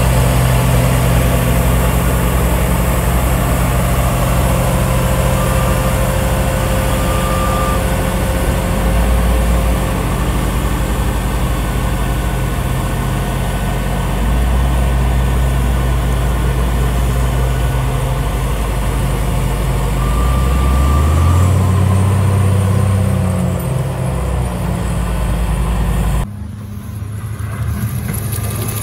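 CAT 938G wheel loader's diesel engine running under load while it drives a front-mounted two-stage snowblower, with a steady rush of blower noise over the engine. About 21 seconds in the engine pitch rises, and near the end the sound drops suddenly to a quieter engine running.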